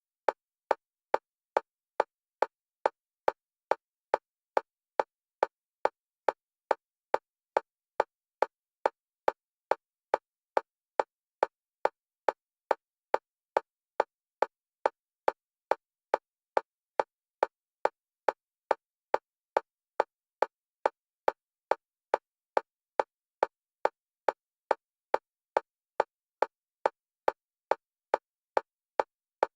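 Single-pitch electronic metronome click repeating evenly at about two clicks a second, alternating between the left and right stereo channels for EMDR bilateral stimulation.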